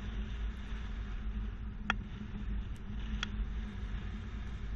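Low, steady rumble of an SUV driving slowly with a loaded hitch-mounted bike rack, heard from close behind the hitch, with two light clicks a little over a second apart.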